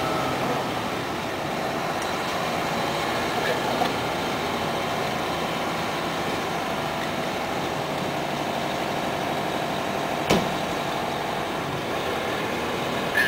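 Fire engines running at idle, a steady engine rumble with no change in pitch, and one sharp knock about ten seconds in.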